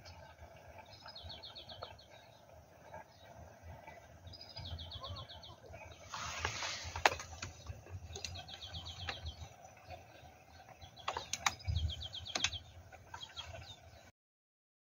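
A bird repeating a short, rapid trill about every three seconds. A brief rustle comes about halfway through, and a few sharp clicks, the loudest just after it, sound over a low rumble.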